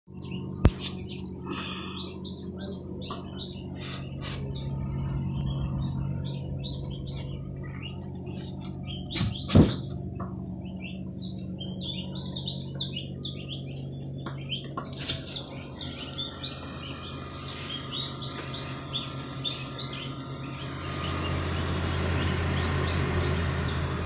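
Many small birds chirping in short, quick peeps over a steady low machine hum that grows louder near the end. Two sharp clicks, one just after the start and one about ten seconds in.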